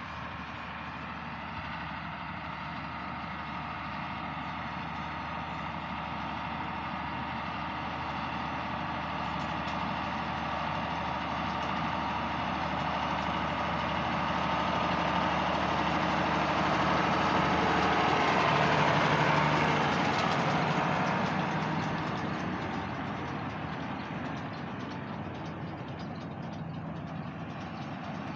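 Tractor engine running steadily with a hay baler in tow. It grows slowly louder as it comes close, is loudest about two-thirds of the way through, then fades as it moves away.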